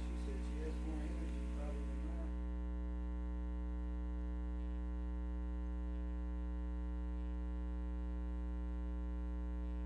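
Steady electrical mains hum: a low buzzing tone with a ladder of evenly spaced higher overtones, unchanging in level throughout.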